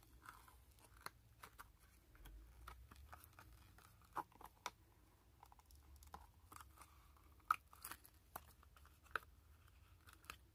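Flexible silicone mould being flexed and peeled off a cured epoxy resin coaster: faint crackling with scattered sharp clicks as the resin releases from the silicone, a few of them louder.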